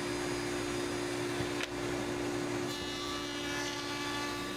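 Table-mounted router running with a steady motor hum while its bit rounds over the edge of a walnut board, with the rasp of the bit cutting the wood.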